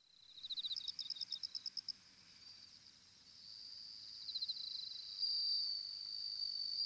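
Insects chirping faintly in high, thin pulsed trills, about seven pulses a second, with a second burst of trilling later and a steadier high trill near the end.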